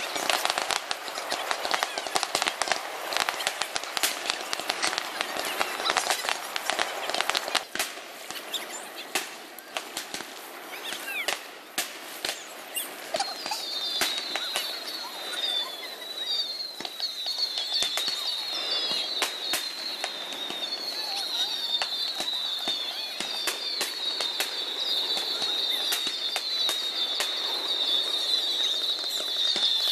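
Fireworks display: many rapid cracks and pops from bursting aerial shells, densest in the first several seconds. From about halfway, a high warbling chirp repeats over and over.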